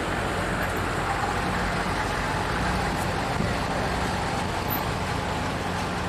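Steady low rumble of idling vehicle engines mixed with city street noise.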